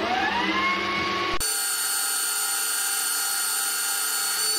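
Boxford 280T lathe spinning up on its variable-speed inverter drive, a whine rising in pitch and levelling off, then about a second and a half in changing suddenly to a steady hiss with a high whine as the tool takes a light turning cut along the metal bar under power feed. The cut leaves a rough surface finish.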